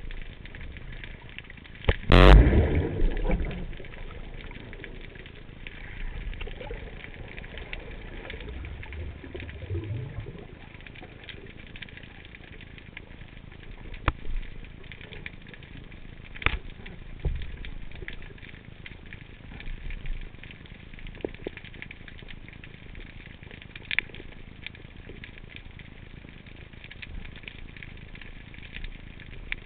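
Underwater ambience picked up by a camera in a waterproof housing during a breath-hold dive: a steady hiss with a few scattered sharp clicks, and one loud rushing thump with a low rumble about two seconds in.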